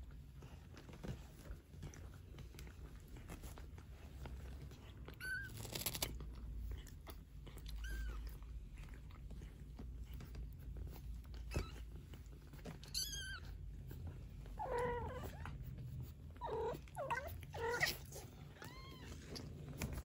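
15-day-old Maine Coon kittens mewing: short, thin, high-pitched squeaks now and then, then several lower, fuller mews close together in the last few seconds.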